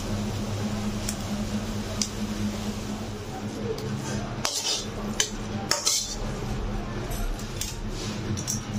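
A metal utensil clinking and scraping against a cooking pan, a handful of sharp clinks with the loudest in the middle, over a steady low hum.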